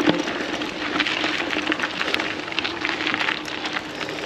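Mountain bike rolling along a dirt trail: steady tyre noise full of small crackles and ticks from the trail surface under the wheels, with a faint steady hum.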